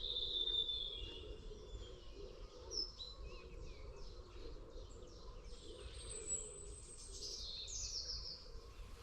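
Birds singing, with short whistled phrases and a fast high trill about seven seconds in, over a steady low rumble.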